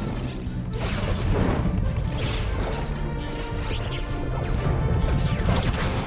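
Film soundtrack: loud music with crashes and whooshes from sound effects over it, the sharpest about a second in, about two seconds in and near the end.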